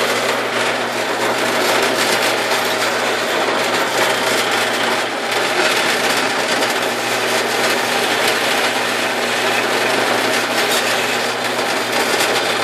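Harbor Freight 4x6 metal-cutting bandsaw running steadily on slow speed, its blade bearing on a rusty steel bar under only the weight of the saw head and making little headway in the cut.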